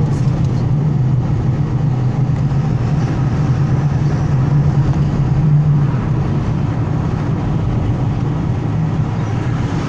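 Truck engine and road noise heard from inside the cab while driving, a steady low drone.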